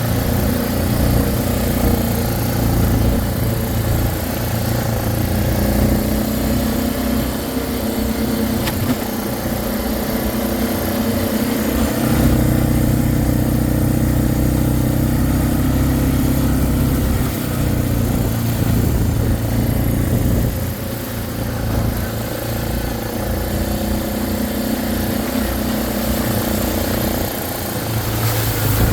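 ATV (four-wheeler) engine running while being ridden, its engine speed shifting up and down a few times.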